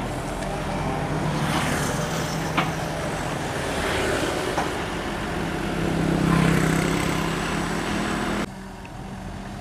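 Sumitomo 265 hydraulic excavator's diesel engine running under working load, with a few faint knocks. The engine swells louder about two-thirds of the way in, then drops off sharply about a second before the end.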